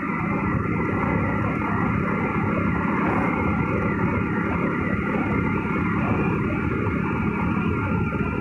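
Steady rush of wind and engine noise from a motorcycle underway on a road, with a faint steady whine running through it.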